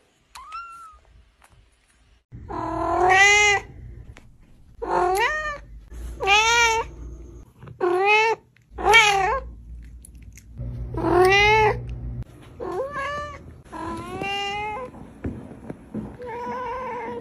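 A domestic cat meowing loudly over and over, about nine long meows one to two seconds apart, each rising and then falling in pitch.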